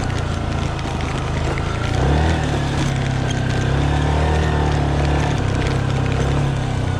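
Yamaha motorcycle engine running under load as it climbs a loose rocky trail, its revs picking up about two seconds in and holding steady after.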